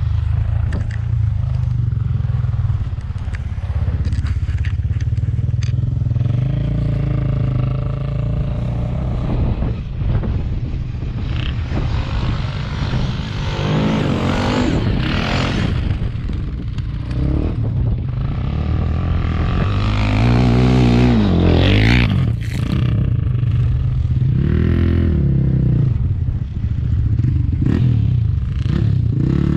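ATV (quad bike) engines running under way, the revs rising and falling several times, with the strongest revving a little before halfway through and again about two-thirds in.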